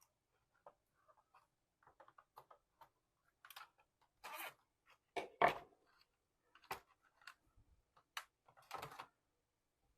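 Small clicks, taps and rustles of hands working on a solar street light's plastic housing and wiring, with a few louder knocks in the second half, the loudest about halfway.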